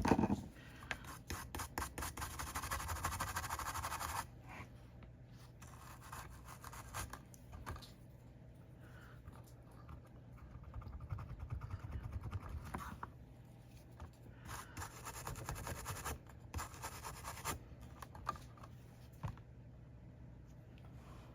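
Small brush scrubbing isopropyl alcohol over fresh solder joints on a circuit board to clean off flux, in several spells of quick scratchy strokes with short pauses between them. A knock sounds right at the start.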